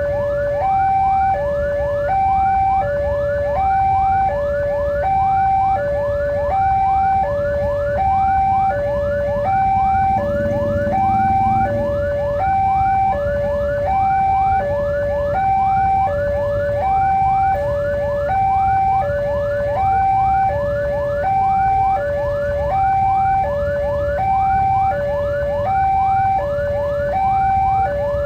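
Railway level-crossing warning alarm sounding continuously: an electronic two-tone signal switching evenly between a higher and a lower note about every 0.7 s, with fast chirping layered over it. A low rumble runs underneath.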